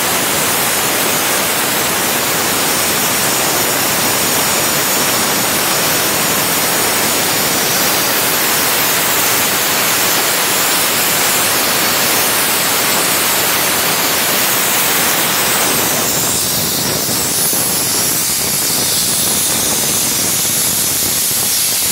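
Waterjet cutter's high-pressure jet starting a cut into a 135 mm thick aluminium-alloy block: a loud, steady hiss of jet and spray, turning thinner and more hissy near the end.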